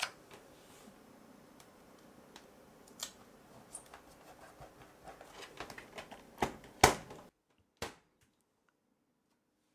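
Fingers tapping and rubbing on the glossy plastic lid of an HP Mini netbook while pressing an Apple logo sticker onto it, with scattered light clicks and a sharper click about seven seconds in. The sound cuts off abruptly just after.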